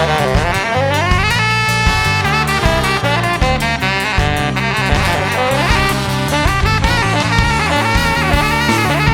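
Live ska band playing an instrumental, with horns carrying the melody over drums, electric bass, guitar and organ.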